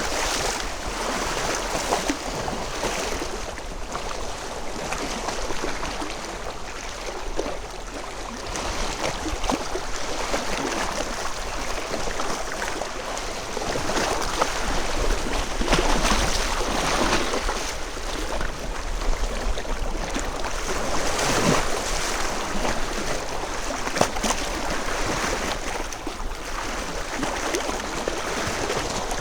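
Small lake waves lapping and splashing against shoreline stones, in an irregular run of splashes.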